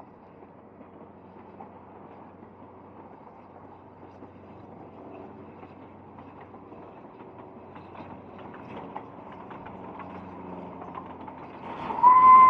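Narrow-gauge George England 0-4-0 saddle-tank steam locomotive and its train running, a faint rumble with scattered rail clicks that slowly grows louder. Near the end a loud, steady steam whistle blows.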